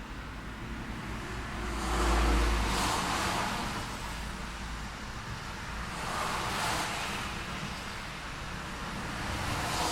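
City road traffic: a steady low rumble with two vehicles passing, their tyre and engine noise swelling and fading about two seconds in and again about six seconds in.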